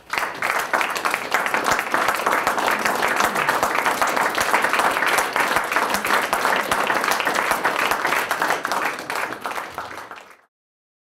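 Audience applauding, a dense steady clapping that starts suddenly and is cut off abruptly near the end.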